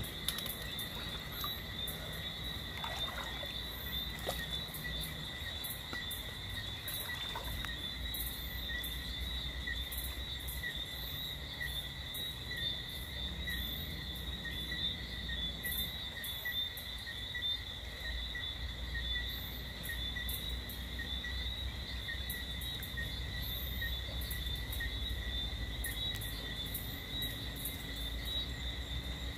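Steady night chorus of insects: an unbroken high, even trill that neither rises nor falls, over a low rumble.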